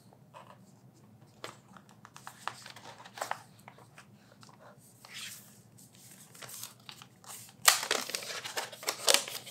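Paper packaging rustling and crinkling as a tablet is lifted out of its box and slid from its paper wrapper, with scattered light taps and clicks. The rustling grows louder and busier near the end.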